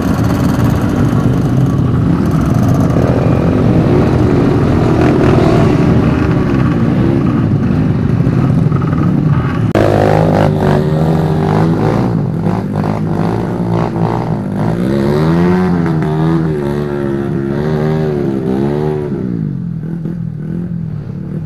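Trail motorcycle engines running and revving, their pitch rising and falling repeatedly. About ten seconds in the sound changes abruptly to one engine revving up and down several times, which eases off near the end.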